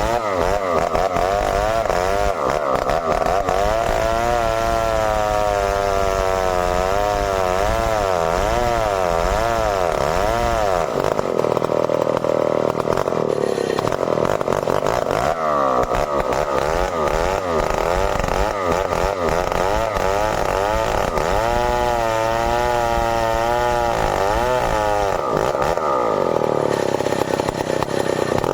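Stihl 070 two-stroke chainsaw running at high revs, cutting merbau wood. Its pitch rises and falls over and over as the engine is loaded in the cut, with steadier stretches in between.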